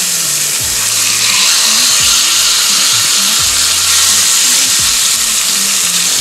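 Skin-on fish fillets sizzling in hot avocado oil in a grill pan, a steady frying hiss.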